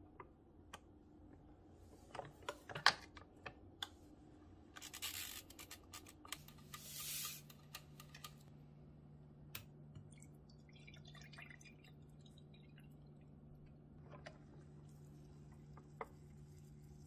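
Quiet kitchen handling sounds: a run of small clicks and taps, then two short hissing, rustling bursts, followed by a low steady hum.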